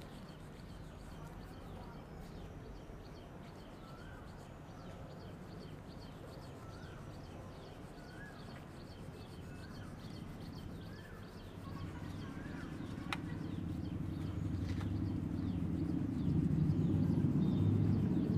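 Outdoor ambience: a bird chirps briefly about once a second over a low hum. About two-thirds of the way in, a low, steady-pitched rumble starts and grows louder.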